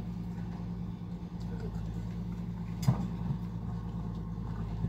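A motor running steadily with a low, even hum. A single sharp knock about three seconds in.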